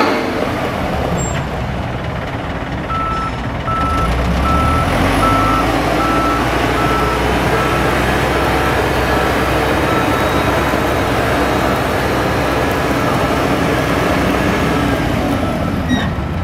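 1989 Michigan L70 wheel loader's diesel engine running under load while its backup alarm sounds, a single-tone beep repeating a little more than once a second. The engine gets heavier about four seconds in, and the beeps grow fainter toward the end.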